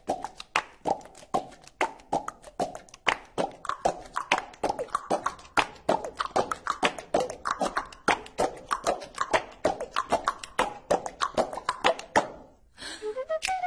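Percussion music: a quick, uneven run of dry taps and clicks, several a second, some carrying a short pitched knock. It stops about twelve seconds in, and a high melody begins just before the end.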